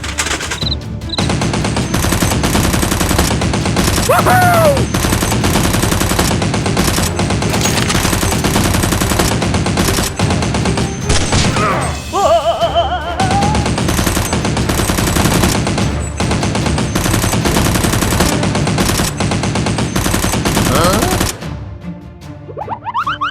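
Sustained rapid gunfire sound effects, machine-gun style, mixed with music. It cuts off suddenly about 21 seconds in, and a few quieter rising sweeps follow.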